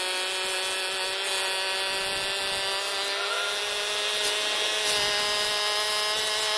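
Ryobi 4-inch angle grinder running steadily while scoring a cut line into the road surface: a continuous high motor whine over a hiss of grinding, creeping slowly up in pitch.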